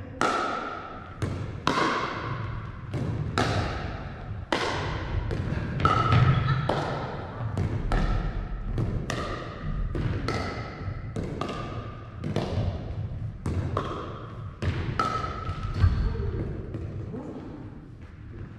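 A pickleball rally: a long string of sharp pops as paddles strike a plastic pickleball, with the ball bouncing on a wooden floor, about one to two hits a second and echoing in a large gym hall. The hits stop about three seconds before the end.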